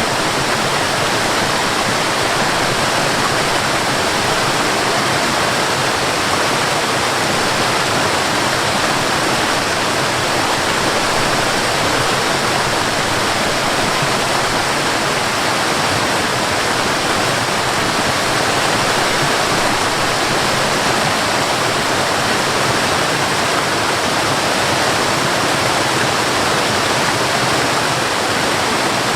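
Mountain waterfall: a steady, unbroken rush of falling water.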